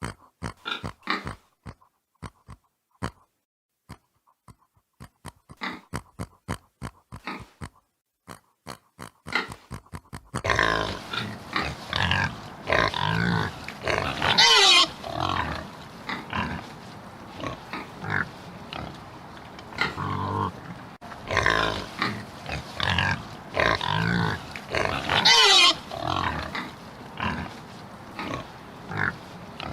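Pig grunting: short, separate grunts for about the first ten seconds, then a noisier stretch of continued grunting with two loud, high calls, about fifteen and twenty-five seconds in.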